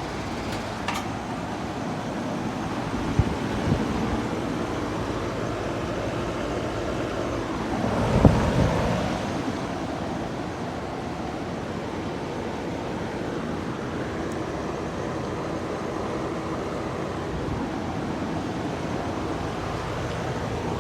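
Goodman central air-conditioner condensing units running: a steady fan and compressor hum, with two light knocks a few seconds in and a brief louder rush about eight seconds in.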